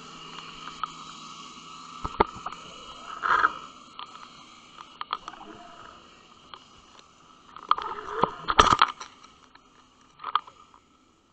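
Muffled knocks, clicks and scrapes picked up underwater through a camera's waterproof housing as it shifts over a sandy, shelly bottom, over a faint steady hiss. The loudest knocks come in a quick cluster about eight seconds in.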